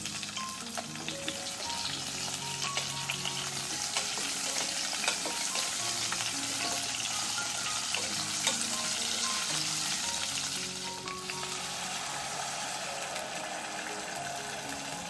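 Food frying in hot oil in a wok or pan, a steady sizzle that builds and then eases a little near the end, with occasional small clicks. Background music with a simple melody plays underneath.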